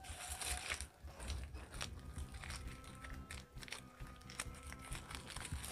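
Plastic raffia twine rustling and crinkling in a run of small crackles as it is wrapped and tied around a tree. Faint background music comes in about halfway.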